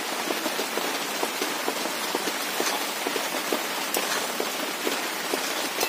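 Heavy rain falling on the roof: a steady hiss with many separate drop hits.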